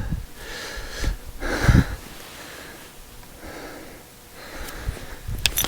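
A man breathing heavily, several noisy breaths about a second apart, with a couple of sharp clicks near the end.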